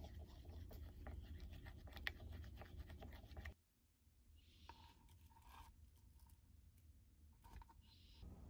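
Wooden spoon stirring a creamy sauce in a small ceramic bowl, scraping and clicking against the bowl's sides. About three and a half seconds in the sound cuts off to near silence with a few faint taps.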